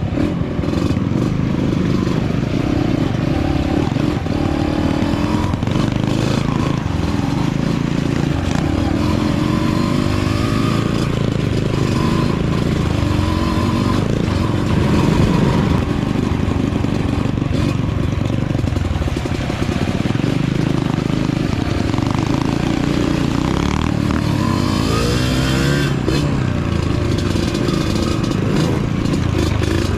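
Small off-road dirt bike engines running on a rough trail ride, the engine note rising and falling as the throttle is opened, most clearly about ten seconds in and again about twenty-five seconds in.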